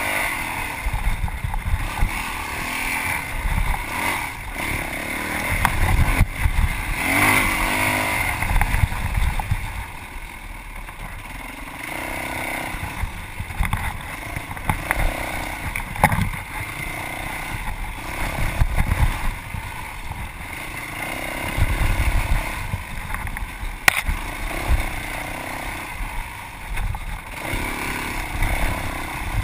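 Yamaha WR450F dirt bike's single-cylinder four-stroke engine revving up and dropping back again and again as it is ridden hard off-road, with a few sharp knocks from the bike over rough ground.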